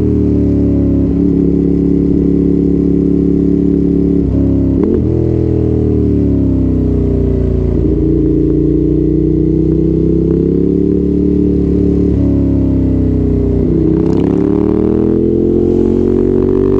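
Ducati Monster's L-twin engine under way on the road, a steady loud exhaust note that rises and falls with the throttle. The note breaks and jumps in pitch several times as gears are changed with the quickshifter and auto-blipper.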